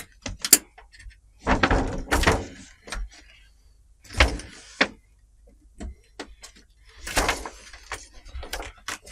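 Clicks, knocks and scraping of parts being handled as an LED backlight strip is pulled out of a TV panel and a replacement strip is laid in. There are three longer scraping stretches, near the start, in the middle and about two-thirds through.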